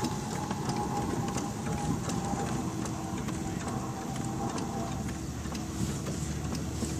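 1910 Stanley Steamer's two-cylinder steam engine running as the car drives along, a steady, rapid mechanical clatter.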